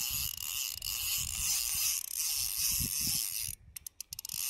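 Spinning reel being cranked to reel in a hooked perch. The cranking stops suddenly about three and a half seconds in, followed by a few short clicks.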